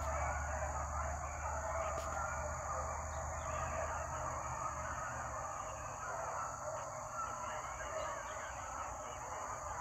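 A pack of deer hounds baying on a running deer, many voices overlapping in a continuous chorus.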